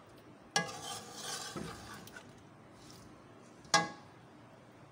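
A metal spatula stirring thick curry in a metal cooking pot: a sharp clink against the pot about half a second in, followed by a second or so of scraping, and a second ringing clink near the end.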